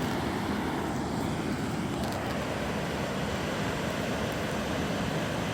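Steady rushing of a river in flood, swollen by a typhoon.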